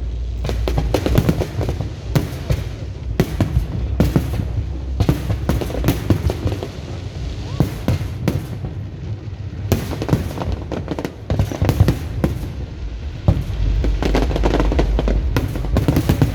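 Fireworks display going off: a dense, continuous run of sharp bangs and crackles over a deep rumble of shell bursts.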